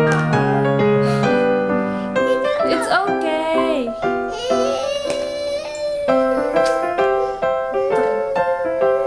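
Background music led by a piano or keyboard, playing steady notes throughout, with a voice briefly heard over it.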